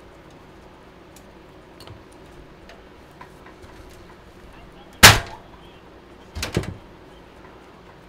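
A single sharp knock about five seconds in, then a quick cluster of two or three lighter knocks about a second and a half later, over a faint steady hum.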